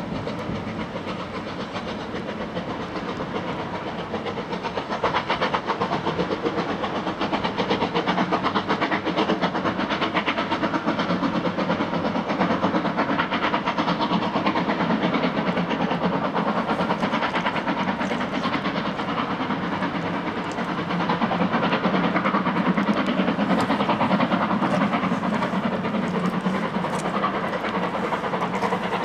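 Steam locomotive 34059, a three-cylinder Bulleid Battle of Britain class pacific, working a train away with a fast, steady exhaust beat. The beat grows louder about five seconds in and again near the end.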